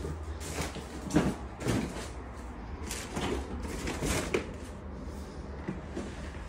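A series of short knocks and thumps, most in the first four seconds, then fewer: footsteps and handling noise as someone walks across the floors of an old house.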